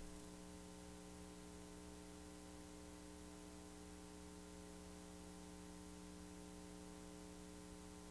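Near silence filled by a steady electrical hum, a buzz made of several even tones over faint hiss.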